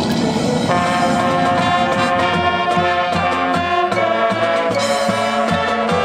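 Marching band brass comes in with loud held chords about a second in, with drum strokes under them. Before that, a low rumble fills the opening moment.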